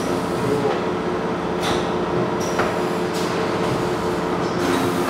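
Steady mechanical drone of processing-room machinery, holding several even tones, with a few short sharp noises over it.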